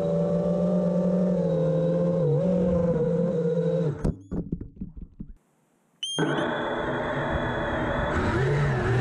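Emax Hawk 5 racing quadcopter's brushless motors and propellers whining in fast flight, with a slight dip in pitch about two seconds in. The sound breaks up and cuts out about four seconds in, leaving a second of near silence. Then the motors start up again with a high whine about six seconds in and throttle up near the end.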